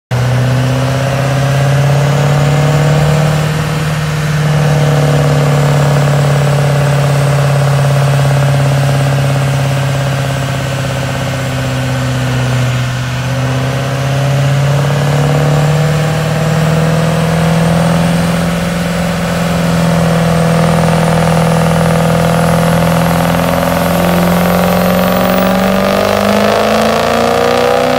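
2006 Ford 6.0 Power Stroke V8 turbodiesel running hard under load on a chassis dyno, its pitch climbing slowly and steadily through a long pull. A high whine rises with it over the last several seconds.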